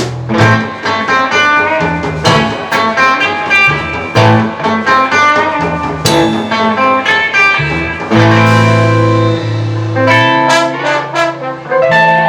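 A live band playing, with a busy beat of sharp hits and held low bass notes under a dense layer of melody notes.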